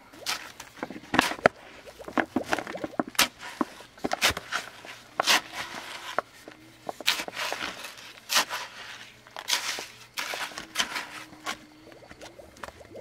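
Irregular knocks, taps and scrapes of hands-on building work, the sharpest knocks about a second and a half in.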